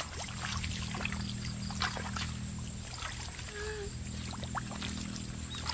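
Muddy shallow water sloshing and splashing in small, scattered bursts as hands and legs move through it, over a steady low hum.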